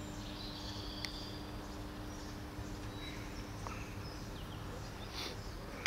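Quiet street ambience: a steady low hum with a few faint bird chirps now and then.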